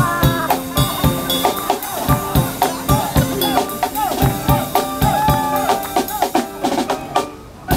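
Drum kit playing a steady beat with music over it. The music breaks off briefly about seven seconds in, and a drum hit comes back right after.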